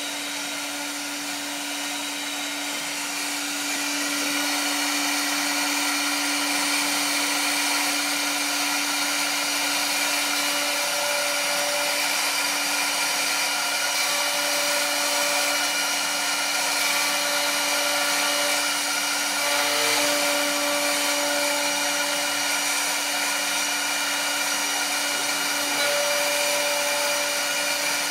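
Metal lathe running, spinning a long steel shaft held between the chuck and a tailstock centre: a steady machine hum with a hiss over it. A higher tone comes and goes several times from about ten seconds in.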